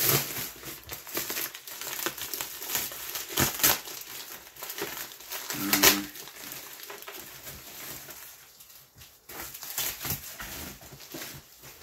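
Clear plastic wrapping crinkling and rustling as it is handled and pulled open, in irregular crackles. The loudest crackle comes about six seconds in, and it quietens briefly near the end.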